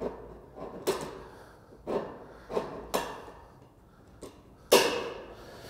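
Thin sheet-metal gable trim being bent with a hand seamer: a handful of separate sharp metallic knocks and clanks as the tool grips and folds the tab, the loudest about a second before the end.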